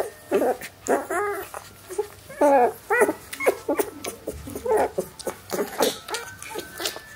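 Newborn puppies crying and whimpering, a rapid string of short, high, wavering squeals, several voices overlapping at times.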